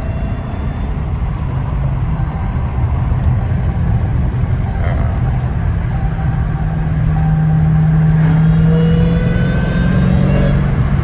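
Dodge Hellcat Redeye's supercharged 6.2-litre V8 running under way: a steady low engine drone with tyre and road noise. It swells a little past the middle, and a faint whine rises in pitch near the end.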